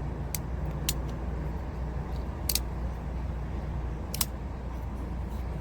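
Vosteed crossbar-lock folding pocket knife being flicked open and shut on its ball-bearing pivot, four sharp metallic clicks as the blade snaps into place and the lock releases. A steady low rumble runs underneath.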